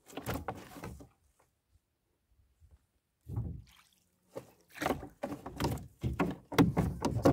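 Fishing net being hauled by hand over the side of a small boat: the wet net rustles and knocks against the hull in irregular thumps. One burst comes first, then a pause of about two seconds, then a quick run of knocks that grows louder toward the end.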